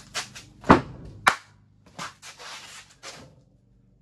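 Handling knocks at a wooden workbench: a few sharp knocks, the loudest two about a second in, then a short scraping rub.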